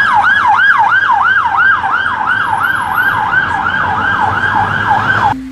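British police van's siren sounding a fast yelp: a loud wail rising and falling about four times a second. It cuts off suddenly just before the end, where music starts.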